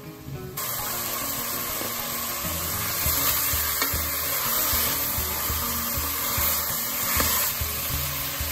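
Chicken pieces frying in an aluminium pressure cooker as a steel ladle stirs and scrapes them against the pot, loudest from about three seconds in until near the end. Background music plays throughout.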